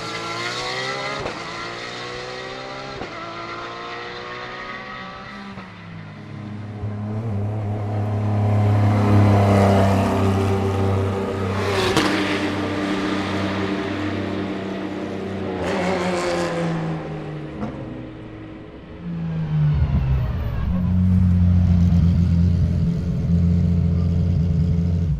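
Porsche GT3-class race car's flat-six engine at full throttle: it climbs in pitch through quick upshifts, then passes loudly with a falling pitch about twelve seconds in, and again around sixteen seconds. A loud, steady low engine note fills the last five seconds and stops abruptly.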